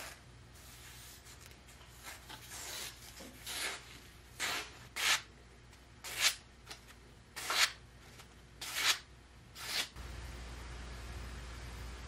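A freshly sharpened kiridashi knife, made from an old saw blade, slicing through a catalog page: a series of short papery hissing cuts about a second apart, testing the edge. Near the end this gives way to a steady low hum.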